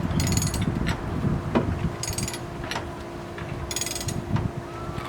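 Hand ratchet turning the screw of a ball joint press to force a new ball joint into a 2005 Chevrolet Suburban's suspension. A short run of ratchet clicks comes on each back-stroke, about every two seconds, with brief squeaks of metal under load between them.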